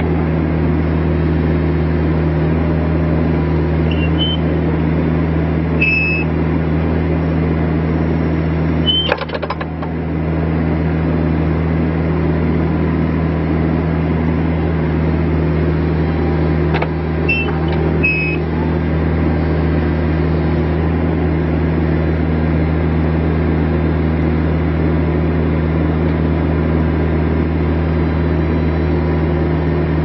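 Bobcat E26 mini excavator's diesel engine running steadily while the boom, arm and bucket are worked, with a few short high squeaks and a clunk with a brief dip in the engine sound about nine seconds in.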